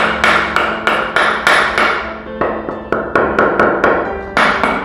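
A hollow bamboo tube being knocked over and over to shake cooked biryani out of it onto a plate. The knocks are sharp and ringing, about four a second, with short breaks about two and a half seconds in and again near the end.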